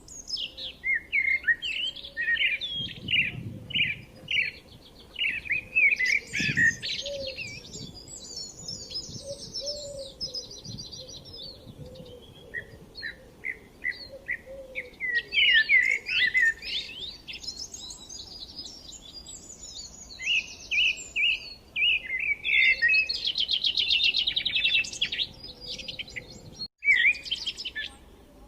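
Several forest songbirds chirping and singing over one another: quick high chirps, fast trills and rapid runs of repeated notes, with a brief dropout near the end.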